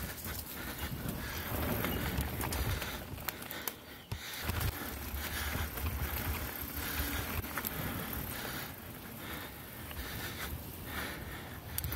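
Mountain bike with a 1x11 drivetrain being ridden along a dirt singletrack: tyres rolling over the dirt, with scattered clicks and rattles from the bike. Wind on the microphone adds an uneven low rumble.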